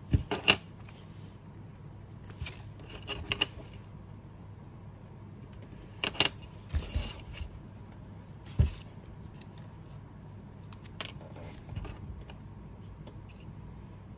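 Small plastic LEGO pieces clicking and knocking as they are pressed together and set down on a tabletop: a scattering of short sharp clicks, the loudest near the start and about two thirds of the way through, over a faint steady hum.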